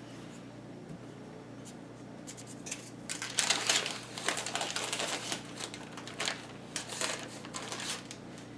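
Rustling and crackling of a sheet of puff pastry being handled and unfolded. A dense run of small crinkly clicks starts about three seconds in.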